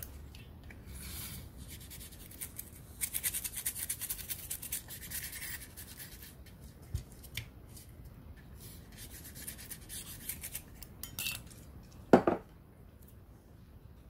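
PCB cleaner sprayed from an aerosol can through its brush nozzle and scrubbed over a remote control's circuit board: a hissing, scratchy rubbing, heaviest in the first half. Near the end comes one loud knock.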